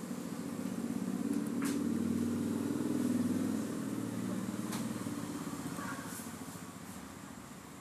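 A low motor rumble, like a passing vehicle's engine, swelling over the first few seconds and then fading away, with a few faint clicks.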